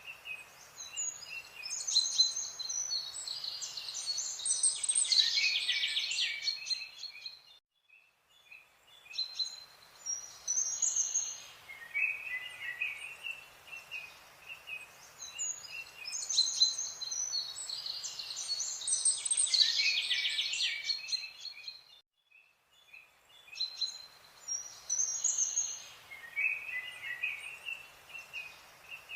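Several birds chirping and trilling in busy bursts over a faint background hiss, with short lulls twice; the same stretch of birdsong repeats about every 14 seconds, like a looped ambience track.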